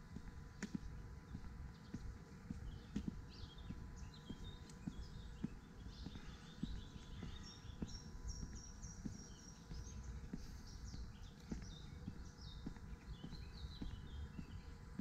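Footsteps of someone walking along a path, over a low rumble, with small birds chirping in runs of short, high notes through the middle.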